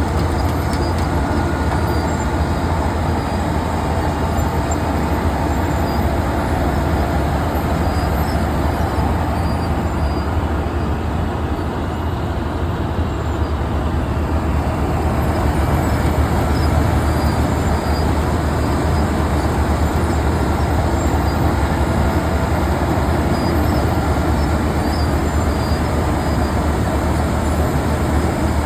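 Wirtgen cold milling machine (road planer) running steadily as it mills pavement, its diesel engine giving a constant low drone under a dense grinding rumble.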